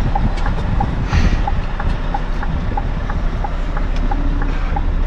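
Scania R580's V8 diesel engine running at low revs, heard from inside the cab, with a light ticking repeating about twice a second and a short hiss about a second in.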